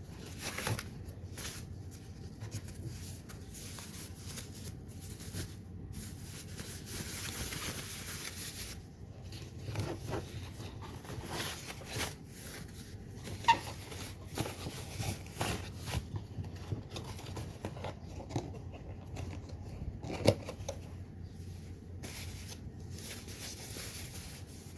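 Handling noise from unpacking and assembling a plastic accessory rack: irregular rustling, clicks and light knocks of parts and packaging. There is a stretch of steady rustling about a quarter of the way in, and two sharper clicks, one a little past halfway and one later.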